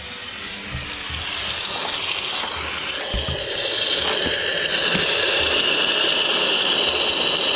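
Compressed-air canister spray gun hissing steadily as it sprays rust-proofing fluid through a long extension wand. It grows a little louder over the first two seconds, then holds steady.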